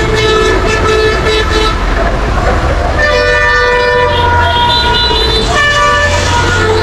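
Motor vehicle horns honking in heavy road traffic: several long, steady blasts at different pitches, one after another and partly overlapping, over the low rumble of engines.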